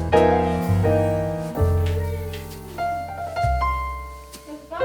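Background piano music: notes struck and left to ring and fade, over low bass notes.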